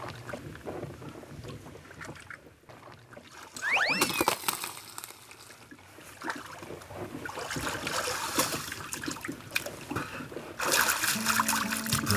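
Lake water splashing and sloshing, with louder bursts of splashing about eight seconds in and near the end.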